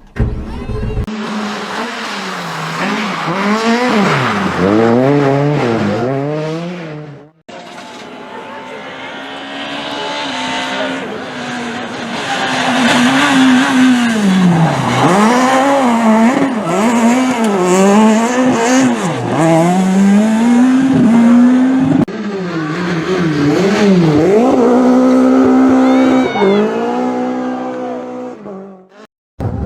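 Rally car engines at full throttle, revs climbing and dropping again and again through gear changes, with tyres squealing, in three separate stretches joined by abrupt cuts about seven and twenty-two seconds in.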